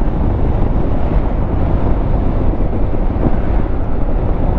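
Motorcycle riding along the road: steady wind rush on the microphone over the engine and road noise.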